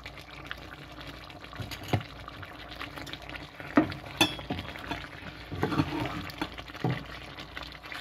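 Pigeon curry simmering in a frying pan, with a wooden spatula knocking and scraping against the pan several times from about halfway through.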